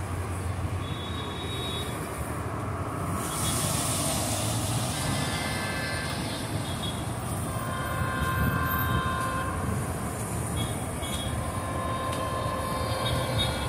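Approaching diesel freight locomotive sounding its multi-note air horn in several blasts, the longest lasting about two seconds, over a steady low rumble of the engine and train.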